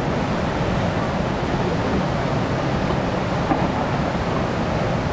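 Whitewater rapid rushing: an even wash of river noise, at a flow of about 943 cfs.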